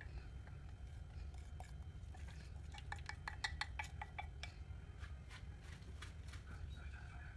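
Utensil clinking against cookware: a quick run of taps, about six a second, in the middle, with scattered single clinks before and after, over a low steady hum.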